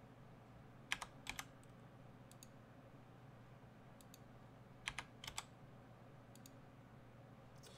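Faint computer keyboard clicks in two short bursts of a few keystrokes each, about a second in and about five seconds in, with a few single taps between, over a steady low hum.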